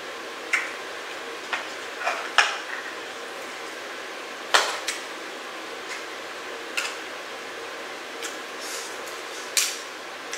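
Eating utensil clicking and scraping against a food dish: about ten short, irregular clacks and scrapes over a steady hiss.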